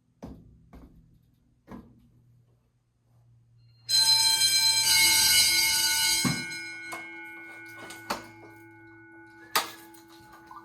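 A few light clicks, then an electric fire alarm bell rings loudly for about two seconds during a fire alarm system test. It stops with a knock, and its tone hangs on and fades slowly.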